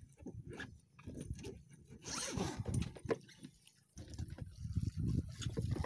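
Close handling noise: irregular scrapes, rasps and knocks right at the microphone as the camera and a freshly caught snakehead are handled in a wooden boat.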